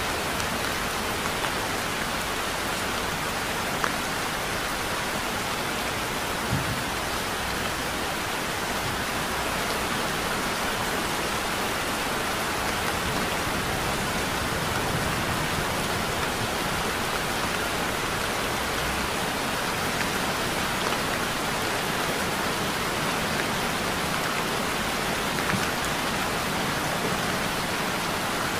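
Heavy rain falling steadily, an even hiss with a few brief louder drop ticks.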